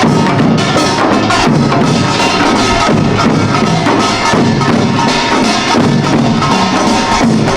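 Pungmul percussion band playing Imsil Pilbong nongak: kkwaenggwari small gongs, janggu and buk drums and jing gong beating together in a continuous, dense rhythm.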